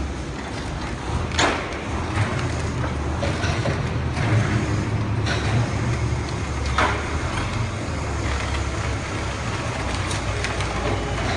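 Forklift engine running steadily with a low rumble, with a few sharp metal knocks on top, the clearest about a second and a half in and again near seven seconds.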